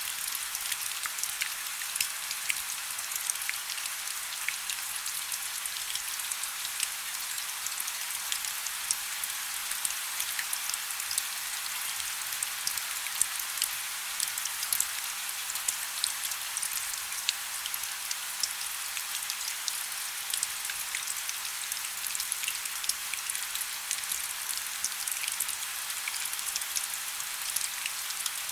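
Heavy rain falling steadily, a dense hiss of drops with many sharp individual drop hits spattering on a surface throughout.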